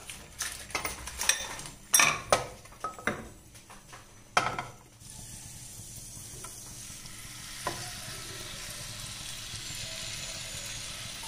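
Butter in a hot nonstick frying pan, with a spatula knocking and scraping against the pan several times over the first few seconds. From about five seconds in, a steady frying sizzle begins as marinated chicken is tipped into the melted butter, growing a little louder soon after.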